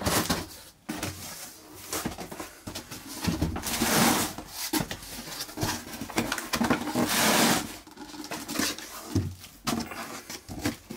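Cardboard box being opened by hand: flaps pulled back and the foil bubble-wrap liner inside handled, rustling and crinkling in several bursts with a few knocks.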